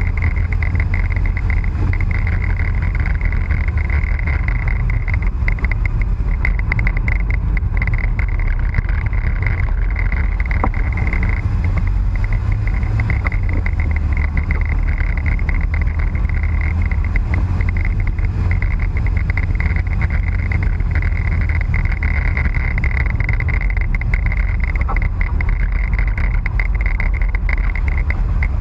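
Fiat Panda 4x4 driving on a snow-covered road: a steady low engine and tyre rumble with no marked revving or changes.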